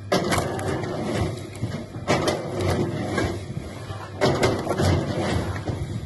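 A steady low machine hum, with loud bursts of clattering and knocking about every two seconds.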